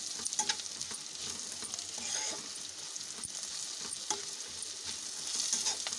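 Sliced chathail gourd and onions sizzling in oil in a nonstick pan while a spatula stirs them to mix in the salt, with scattered scrapes and light taps of the spatula against the pan.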